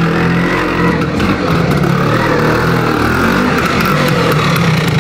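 A 1978 Vespa PX 200 E scooter's two-stroke single-cylinder engine running as the scooter is ridden up toward and past the camera. The engine note dips and picks up again about halfway through.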